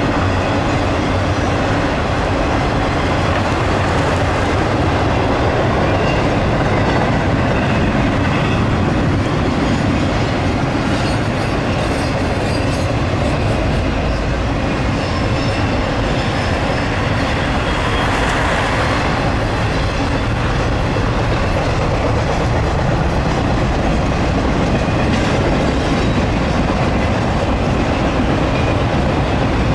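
Intermodal freight train cars, carrying piggyback trailers and double-stacked containers, rolling steadily across a railroad overpass: a continuous, even train noise of wheels on rail.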